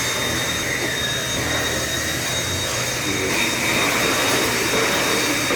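Vacuum cleaner running steadily, a rush of air with a thin high motor whine over it.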